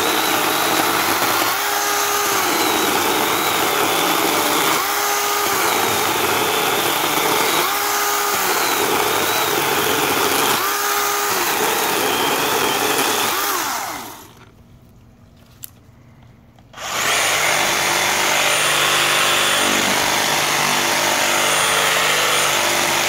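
DeWalt DCCS620 20V compact cordless chainsaw running and cutting through a small log, its motor pitch shifting four times as the chain bites into the wood. It stops about 14 seconds in. About three seconds later a cordless reciprocating saw starts cutting into the log and runs steadily to near the end.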